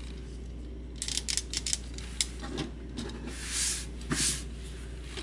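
Plastic parts of a Transformers Astrotrain action figure being handled and fitted into place: a quick run of small clicks about a second in, a single click a moment later, then a couple of short scraping rubs of plastic on plastic.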